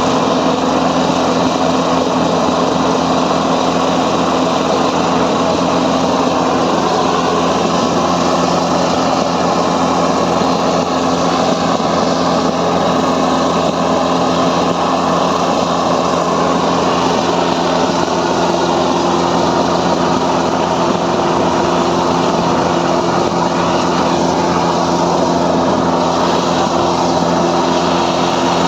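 A small engine running steadily at constant speed, with a dense hiss over it.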